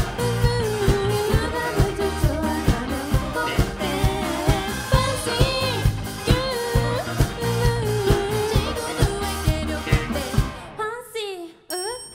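A live pop-rock band playing with a lead singer, over a steady drum kit beat and bass. Near the end the band drops out briefly, leaving a falling vocal line, then comes back in.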